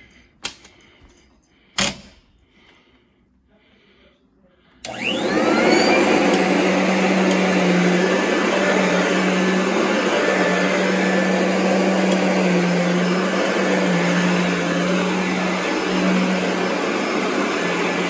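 Two sharp clicks, then about five seconds in a Royal upright vacuum cleaner switches on. Its motor spins up in a moment and then runs loud and steady with a slightly wavering hum while it is pushed over carpet.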